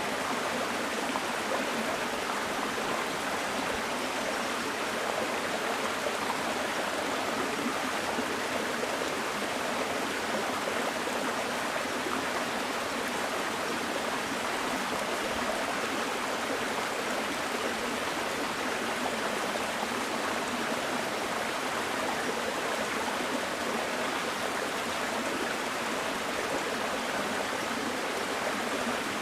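A small mountain stream rushing and burbling steadily over rocks.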